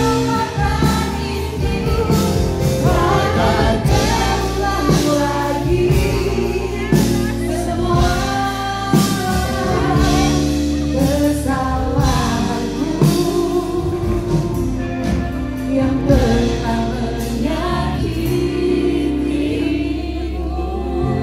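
A live song with band accompaniment and a steady beat, sung by a lead voice, with audience voices singing along.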